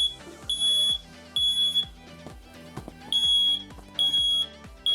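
First Alert battery-powered ionization smoke alarm sounding, set off by aerosol test smoke. Its loud, high-pitched beeps come in groups of three with a pause of about a second and a half between groups: the standard three-beep fire alarm pattern.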